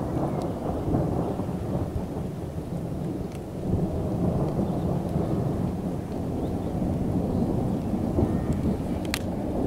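Thunder rumbling on and on under a thunderstorm, with rain falling, and a sharp click about nine seconds in.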